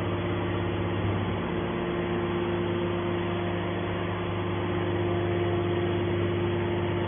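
Baler machine's motor and hydraulic pump running steadily with an even, unchanging hum.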